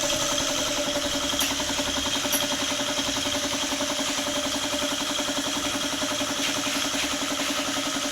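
Daihatsu Taft GT diesel engine idling steadily with an even, rapid beat.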